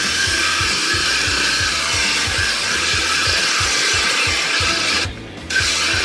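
Power drill spinning a hole saw on the Co-Pilot adaptor, cutting steadily to enlarge an existing hole. The cut stops briefly about five seconds in, then starts again.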